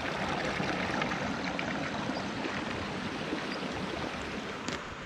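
Small creek trickling and flowing, a steady watery hiss that eases a little toward the end. A few footsteps come in near the end.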